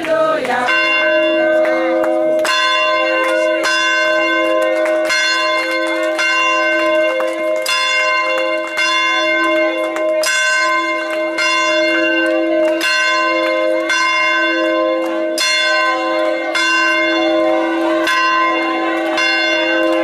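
A single large church bell being swung and rung over and over, a strike about every 1.3 seconds, its ringing tone hanging on between the strokes.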